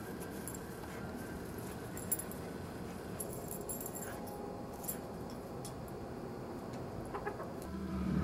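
A dog play-fighting with a chicken: faint scuffling and a few light clicks over a steady low hum. Music comes in near the end.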